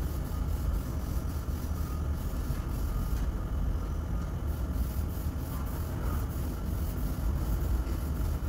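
A steady low machine rumble, with faint scratchy sounds over it.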